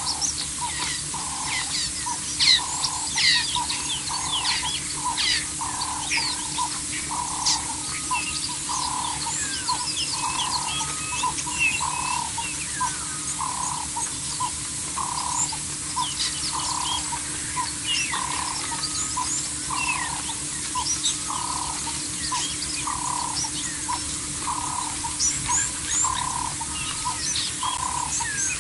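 Wild birds calling in chorus: many short, high chirps and whistles, over one low, hollow note repeated steadily about once a second.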